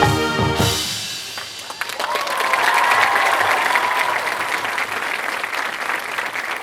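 A marching band's loud brass chord with drum hits cuts off about half a second in and briefly rings out; then the stadium crowd applauds, with a long whoop of cheering a couple of seconds in.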